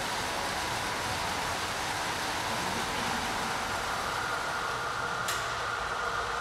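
Steady whirring hiss of a group of exercise bikes and cross-trainers being pedalled hard together. About five seconds in, the sound shifts: the highest hiss drops away and a steady hum gets stronger.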